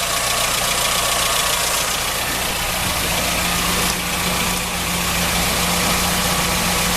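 Ford Fiesta 1.0 Endura four-cylinder engine idling steadily while hose water is flushed through its cooling system, with a steady rush of running water.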